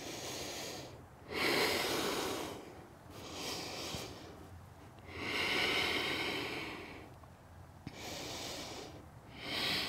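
A woman breathing slowly and audibly while holding a yoga pose: about three long breaths in and out, each swell of air lasting a second or more.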